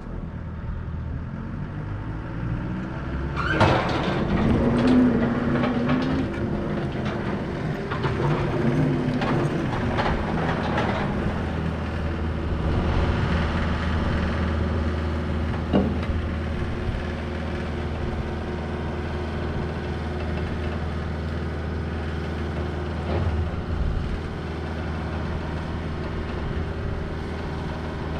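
John Deere 333E compact track loader's diesel engine running, with the engine speed changing and clanks and knocks from the machine during the first ten seconds as it works its lift arms. It then settles into a steady run with a couple of single knocks.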